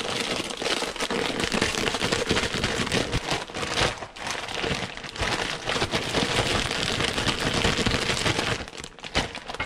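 Zip-top plastic bag crinkling as it is kneaded and shaken, with oily spice marinade squishing over the meat inside. The dense rustle dies down near the end.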